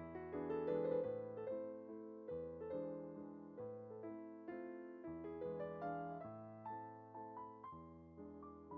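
Background piano music, soft notes struck one after another and fading.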